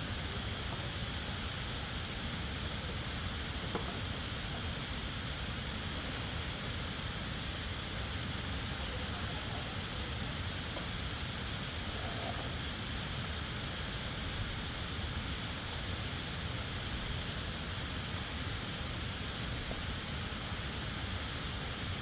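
A steady, unbroken hiss with a strong high-pitched edge to it.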